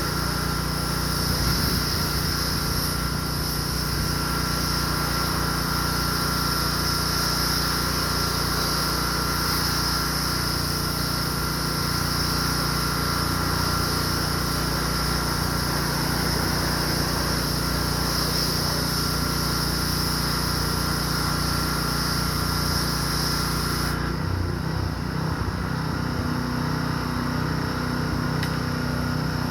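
Pressure washer running steadily: a small engine with the high hiss of the spray over it. Near the end the spray hiss drops away while the engine keeps running.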